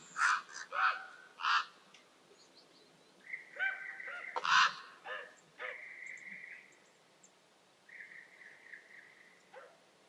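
Wild birds calling at a mire: a quick run of short repeated calls in the first second and a half, then longer drawn-out calls about four seconds in and again near the end.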